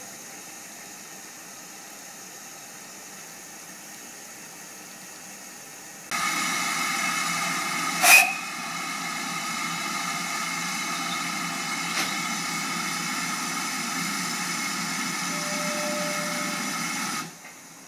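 Steam hissing loudly from a GWR Large Prairie tank locomotive standing at a platform, typical of its safety valves blowing off. The hiss starts abruptly about six seconds in, holds steady with one sharp knock soon after it begins, and cuts off suddenly near the end. Before it there is only a low, steady background.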